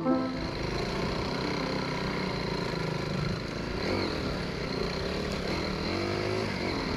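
Dirt bike engine running at riding speed along a dirt trail, with a couple of small shifts in engine pitch partway through.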